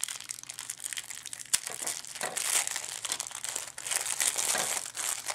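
Thin clear plastic protective film crinkling and crackling as it is peeled by hand off a small pocket camcorder, with one sharp click about a second and a half in.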